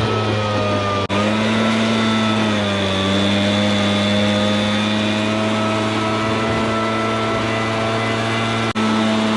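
An engine running steadily, its pitch sagging a little a couple of seconds in and then holding, with two very brief breaks, about a second in and near the end.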